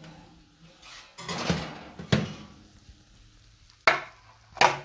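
Metal baking pan of roasted chicken drumsticks being pulled from the oven and handled: scraping against the wire oven rack, a knock, and two loud sharp clanks of metal near the end.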